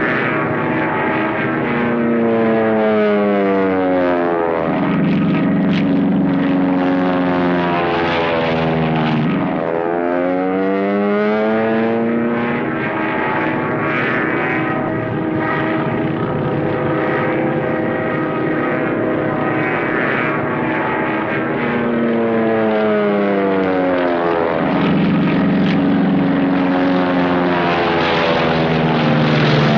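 Propeller-driven piston-engined WWII fighter planes flying past several times, their engine drone dropping in pitch as each one goes by.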